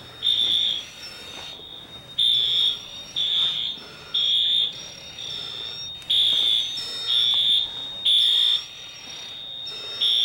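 Building fire alarm sounding an evacuation signal. A loud, high-pitched beep repeats in groups of three with a short pause between groups, the temporal-three pattern.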